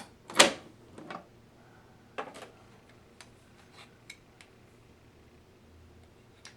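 Scattered clicks and knocks of small hard coffee-making parts being handled, probably the hand grinder and the AeroPress, on a tabletop. The sharpest knock comes about half a second in, then lighter knocks around one and two seconds, and faint ticks after that.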